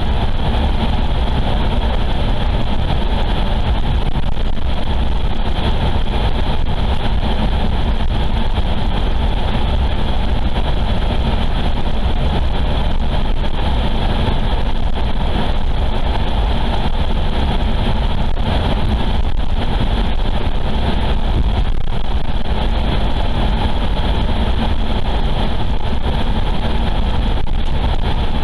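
Steady, loud rumble of a car driving along a paved highway, a low drone of road, tyre and engine noise that does not change.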